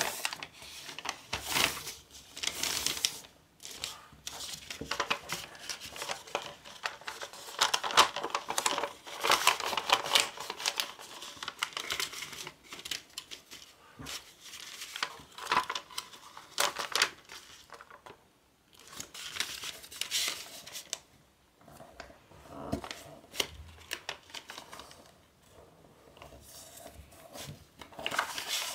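A large pleated sheet of origami paper rustling and crinkling under the hands as it is smoothed flat and folded, in irregular bursts with a few short pauses.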